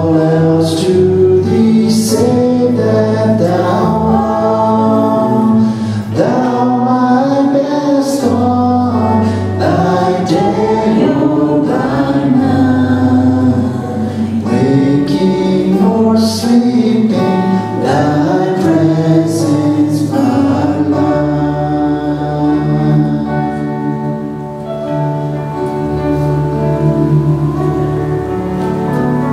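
Live worship song from a small church band: voices singing over acoustic guitar, electric bass and keyboard. The singing stops about two-thirds of the way through and the instruments carry on with held chords.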